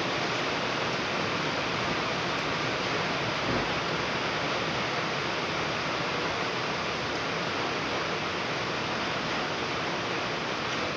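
Heavy rain falling, a steady, unbroken hiss, with one soft low bump about three and a half seconds in.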